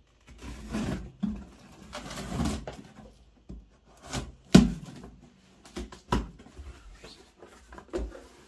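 Cardboard box being opened with scissors: the blades slitting the packing tape, and the cardboard flaps rustling and scraping as they are handled, with several sharp knocks, the loudest about four and a half seconds in.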